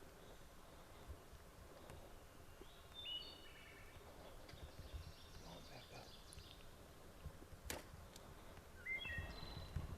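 Wild songbirds calling: a short series of high notes stepping downward about three seconds in and another near the end, with scattered faint chirps between and a single sharp click shortly before the last call.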